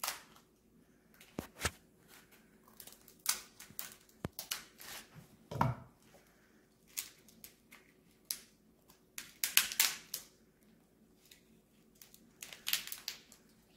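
Kitchen shears snipping through the hard back of a raw lobster tail's shell, then the shell being cracked and pried apart by hand: a string of irregular crunches and snaps.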